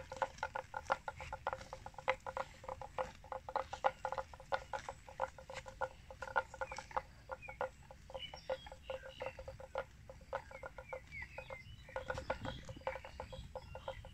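Water buffalo grazing close by, tearing off grass and chewing it: a fast, irregular run of short crunching rips, several a second. A few short high chirps come through in the middle.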